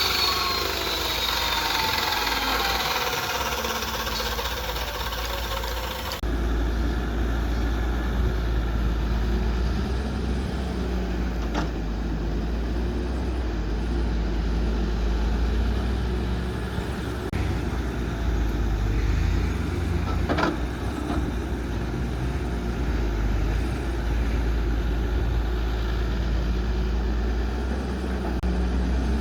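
Heavy diesel machinery such as an excavator running. For the first several seconds a pitched whine glides downward, then it changes abruptly to a steady low engine drone with a couple of sharp knocks.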